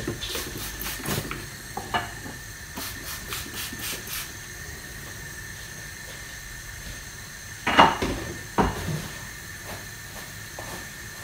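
Kitchen items being cleared off a worktop and set down: scattered knocks and light clatter, with a louder pair of knocks about eight seconds in.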